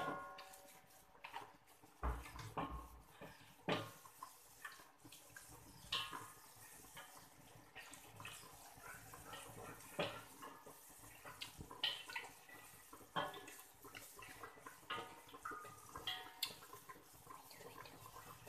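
Water splashing and dripping as wet rice vermicelli is lifted out of a metal pot with wooden chopsticks, with scattered light clicks of the chopsticks against the pot, some ringing briefly.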